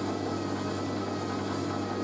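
Hoover A3060 Electronic 1100 washing machine spinning steadily at an intermediate speed, a steady motor whine over a low hum and drum rush. It runs fairly smoothly, with the load balanced.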